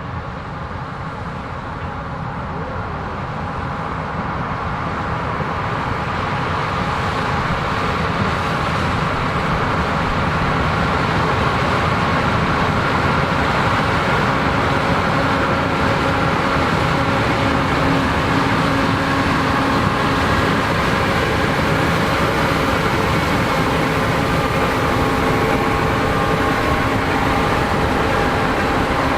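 Combine harvester running in a corn field, growing steadily louder over the first ten seconds as it comes closer, then holding steady with an even engine hum and a faint steady whine.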